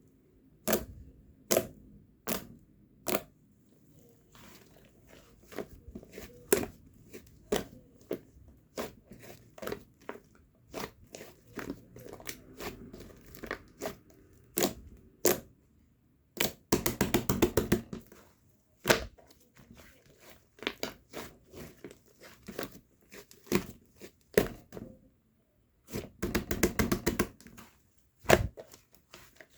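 Slime being squeezed and pressed by hand, giving sharp popping clicks as trapped air pockets burst, over a soft squishing rustle. Twice, around the middle and near the end, the pops come in quick crackling runs.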